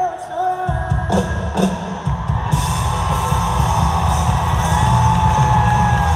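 A live pop-rock band starting into a song: bass and drums come in about a second in, under electric guitar and a long held melody line.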